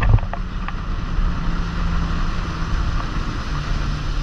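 Wind buffeting an action camera's microphone and water rushing past an inflatable banana boat being towed at speed, with the steady low drone of the towing motorboat's engine underneath. A few short knocks in the first second.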